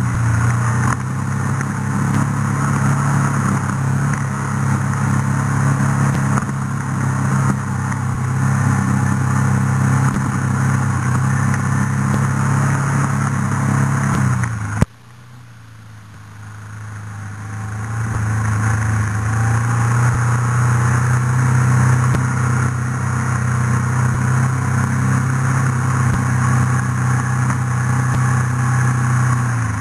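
Off-road vehicle's engine running at steady revs, heard from a mount on the vehicle over a rough dirt track. About halfway there is a sharp knock, the sound drops away suddenly and builds back up over the next few seconds, and the engine then runs on at a slightly lower pitch.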